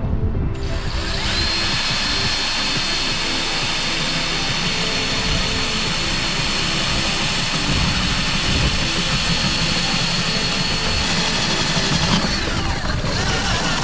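Power drill running steadily as it drills a hole, with a high motor whine; a little over twelve seconds in the trigger is let go and the whine falls as the motor winds down.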